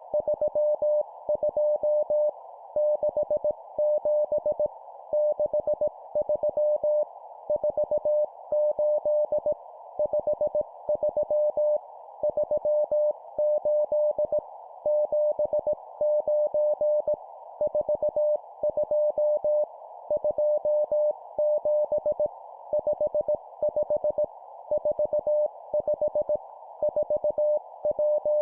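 Morse code (CW) practice tone keyed at 17 words per minute, sending short groups of numbers separated by pauses, over a steady hiss.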